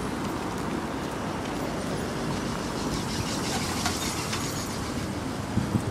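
Road traffic passing close by: a steady rumble of engines and tyres as cars and a larger vehicle drive past, with a few short knocks near the end.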